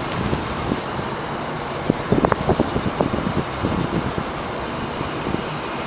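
Water sizzling against the hot metal of a sun-heated container, with a brief run of crackles about two seconds in, over a steady background rush.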